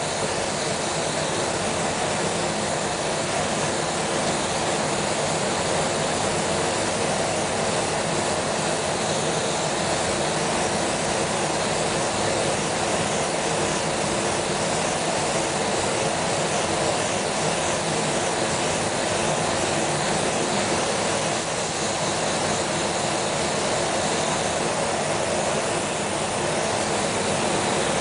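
Steady rushing hiss of spray-painting equipment running without a break, with a faint low hum underneath.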